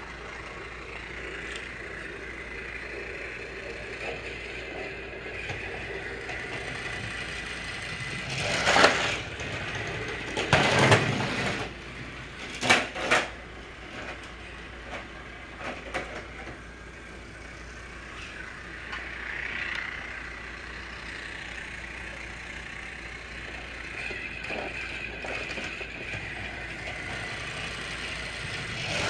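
Battery-powered Trackmaster toy train running on plastic track, its small motor whirring steadily. There are a few short, louder bursts of rattling noise about a third of the way in.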